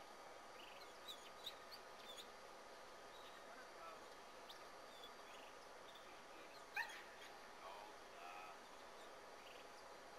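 Faint, distant dog yips and whimpers: a scatter of short calls, the sharpest about seven seconds in.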